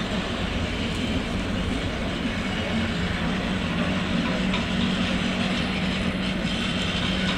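Steady engine drone with a constant low hum under a wash of wind and water noise, from the harbour's boat traffic.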